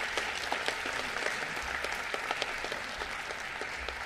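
Audience applauding: many hands clapping together in a steady, dense patter.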